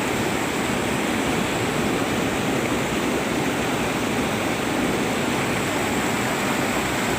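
A steady, even rushing noise that holds the same level throughout.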